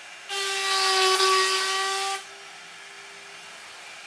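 CNC router's 1.5 kW air-cooled spindle whining steadily at 24,000 RPM. About a third of a second in, its quarter-inch upcut spiral bit cuts a line through wood at 1,100 inches per minute: a loud, harsh cutting noise with a ringing whine that lasts about two seconds, then drops back to the spindle's whine alone.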